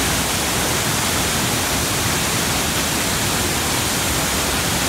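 Spirit Falls, a waterfall crashing into a churning plunge pool, heard as a loud, steady rush of falling water.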